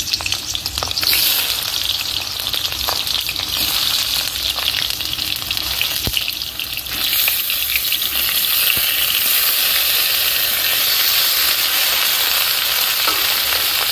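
Raw potato chunks sizzling as they fry in hot mustard oil in a kadai, with a few light knocks as pieces go in; the sizzling grows louder about seven seconds in.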